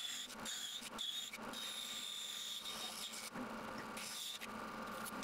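Bandsaw cutting through a stack of plywood: a steady high whine over a hiss of cutting, breaking off briefly several times.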